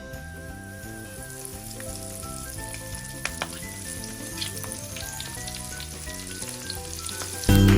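Corn-flour-coated prawns frying in hot oil with a steady sizzle, and a few sharp clicks about three and four seconds in. Background music plays along, becoming much louder near the end.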